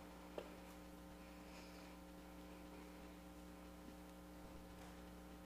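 Near silence: a steady electrical hum made of several steady tones, with one faint click about half a second in.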